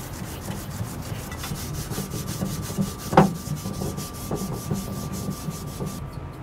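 Dry towel rubbed briskly over the cast-iron body of an old Stanley hand plane to polish it, in quick, even back-and-forth strokes that stop near the end. A single knock sounds about three seconds in.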